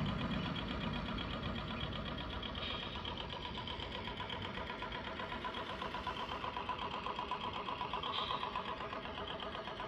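Radio-controlled model trawler's sound module playing a simulated diesel engine running steadily, a fast, even rhythm from the boat's small loudspeaker.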